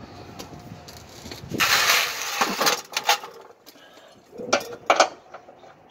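A gloved hand working at a van's rear shock mount: a scraping rustle lasting about a second, then several sharp knocks and clicks of metal being handled.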